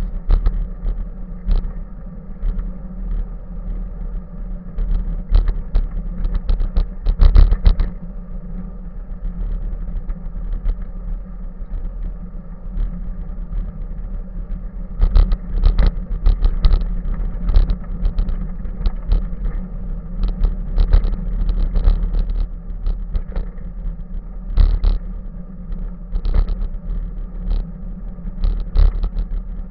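Bicycle ride on a paved path heard from a bike-mounted camera: a steady rumble and hum of the ride, with frequent irregular knocks and rattles as the bike jolts over bumps. The loudest knocks come about seven seconds in.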